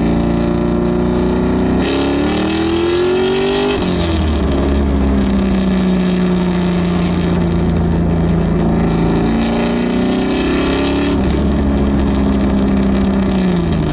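6.2-litre LS3 V8 in a Mazda Miata pulling on the road, heard from inside the open cockpit. The engine note climbs for a couple of seconds and drops sharply at an upshift about four seconds in, then holds nearly steady. It rises again briefly and falls away as the car eases off near the end.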